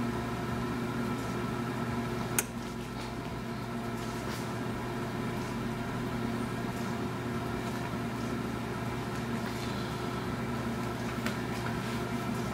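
Oven running with a steady hum while chicken drumsticks roast inside. One sharp click comes about two and a half seconds in, and there are a few faint ticks near the end.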